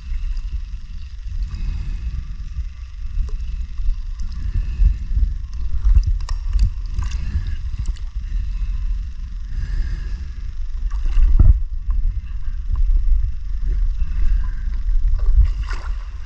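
Underwater sound of a scuba diver breathing on a regulator: exhaust bubbles surge about every four to five seconds over a steady low rumble.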